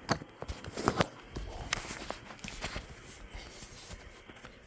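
Scattered clicks and knocks of hands and tools handling metal parts inside the HP 606A signal generator's chassis, a quick cluster in the first second with the loudest knock about a second in, then sparser, fainter taps.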